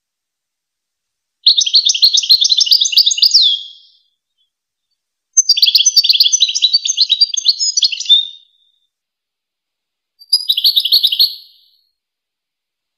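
European goldfinch singing: three bursts of fast, liquid twittering, the second the longest and the last a short one, with clean silences between.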